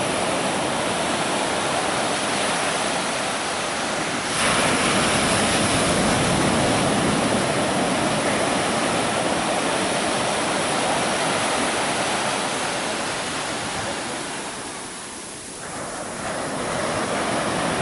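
Sea surf: a continuous wash of waves, with a wave breaking and surging louder about four seconds in, and a lull near the end before the next wave swells up.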